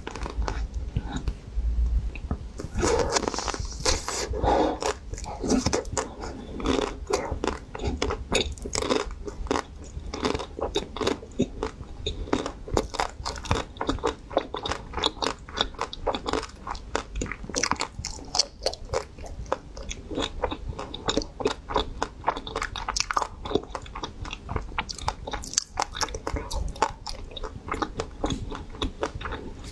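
Close-miked crunching, biting and chewing of a frozen ice-cream bar, with its hard outer layer cracking into pieces in the mouth. The crisp bites and chews come thick and irregular.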